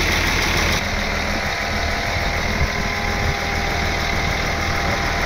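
A large engine running at a steady idle, a continuous low drone. A hiss over it eases about a second in.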